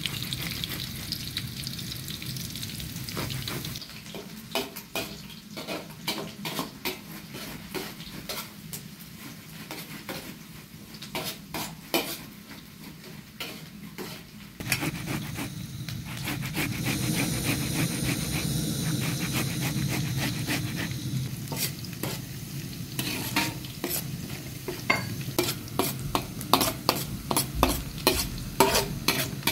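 Tomatoes scraped on a metal grater over a metal bowl, with irregular scratchy strokes in the first half. About halfway in, food starts frying in oil in a metal pan with a steady sizzle, and near the end a metal spoon stirs and scrapes the pan with many quick clinks.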